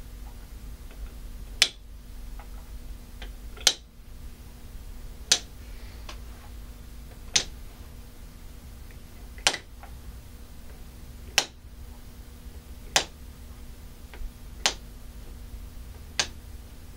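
Wooden counting-stacker pieces being dropped one at a time onto their wooden dowels, each landing with a sharp wooden click. There are nine clicks about two seconds apart, four as the green pieces go on and then five as the blue ones follow.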